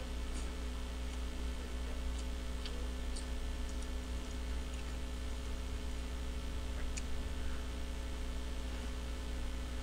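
Steady electrical mains hum and hiss from a microphone with its gain boosted, with a few faint clicks.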